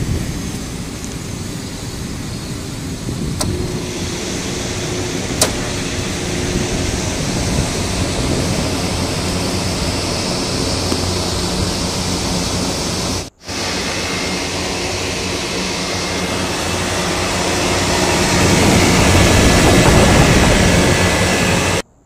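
Packaged air-conditioning unit running after start-up: a steady, loud rush of air from the condenser fan with the compressor's hum beneath it, growing louder in the last few seconds. The compressor has started on the newly fitted control board, which the technician takes as the board working correctly.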